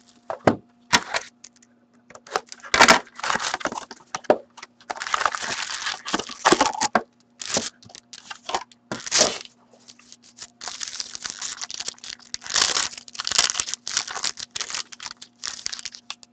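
Hands opening a wrapped box of 2013-14 Artifacts hockey cards and tearing open its foil packs: irregular bursts of crinkling and ripping foil and plastic, with sharp clicks of cardboard.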